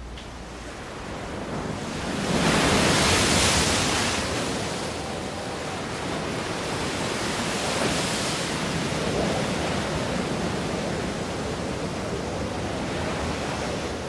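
Sea surf breaking and washing against a rocky shore, a steady rush that swells loudest about two to four seconds in and again around eight seconds.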